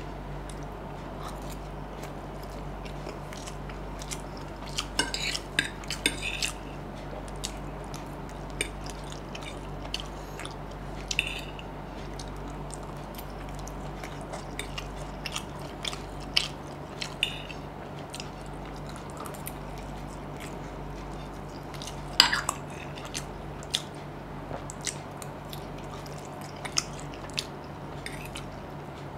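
Close-miked eating sounds: a metal fork clicking and scraping on a plate as noodles are gathered, with chewing between. A steady low hum sits underneath.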